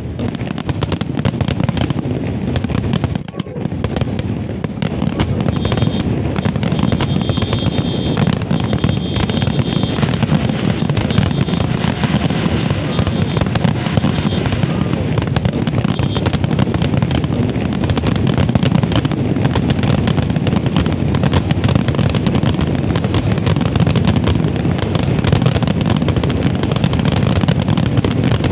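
A fireworks display: a dense, continuous barrage of shell bursts, bangs and crackling overlapping without a break, with a brief lull about three seconds in.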